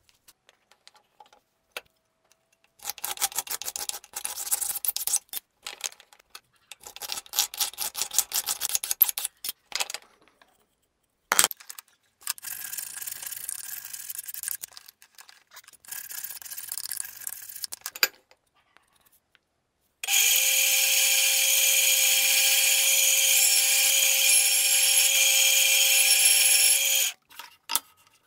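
Wood being worked by hand in a vise with quick back-and-forth strokes in two runs, a single knock, then rougher irregular scraping. A band saw then runs steadily for about seven seconds, cutting a small block of wengé, and stops abruptly near the end; it is the loudest sound.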